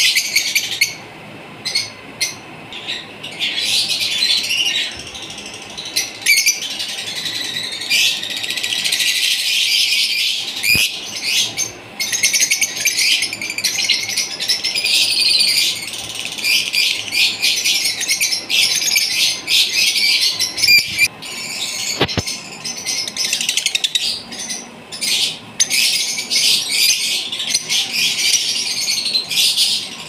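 Caged lovebirds chattering: a dense, continuous stream of rapid, shrill chirps and squeaks, with brief lulls.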